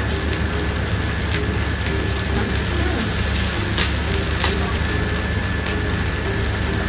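Meat sizzling steadily on an electric grill plate, with a couple of light clicks of metal tongs against the grill about halfway through.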